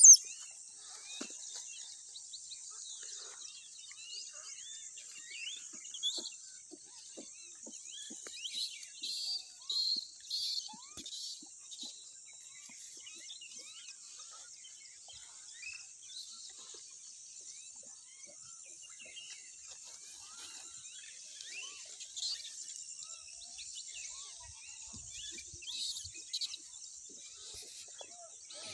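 Steady high-pitched insect drone with small birds chirping throughout, a few louder chirps about nine to eleven seconds in. A brief sharp knock right at the start.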